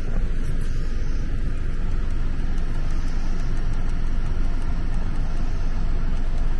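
A 2017 Toyota Hiace Commuter's 2.7-litre petrol four-cylinder engine idling, heard from inside the cab as a steady low rumble.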